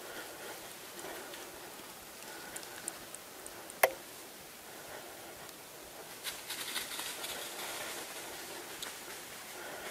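Faint rustling with scattered light ticks, and one sharp click about four seconds in; a louder patch of rustling starts about six seconds in and fades after two seconds or so.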